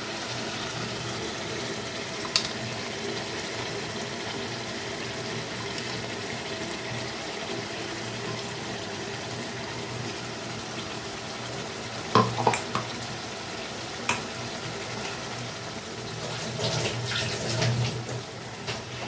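Chicken masala cooking in a pan on the stove with a steady hiss as the nut paste goes in. A few sharp clicks of a spoon on the pan come through it, and there is a spell of stirring and scraping near the end.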